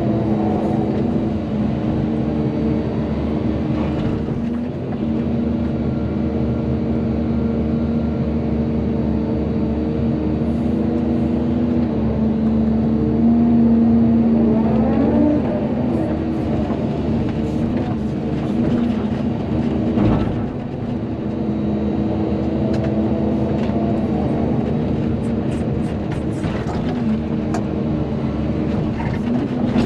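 Volvo EC220DL excavator's diesel engine running under working load. Its pitch rises and falls as the hydraulics work, with scattered short knocks and clicks in the second half.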